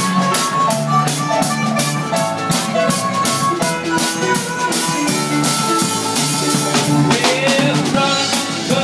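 Live band playing an instrumental passage: a drum kit keeping a steady beat under an electric keyboard, with a harmonica playing lead, its notes sliding near the end.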